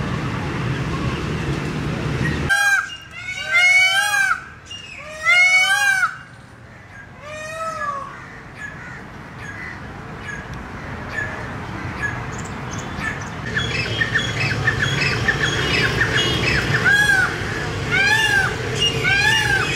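Peacock calls: loud, arching honking calls repeated in quick series, first in a few bursts a couple of seconds in, then again in a faster, steady run of repeats near the end. A steady background noise fills the first couple of seconds and cuts off abruptly when the calls begin.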